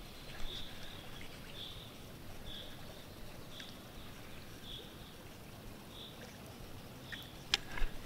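Light water splashing as a small fish is released by hand into a shallow creek, over a low steady murmur of running water. A bird repeats a short high note about once a second, and a few sharp clicks come near the end.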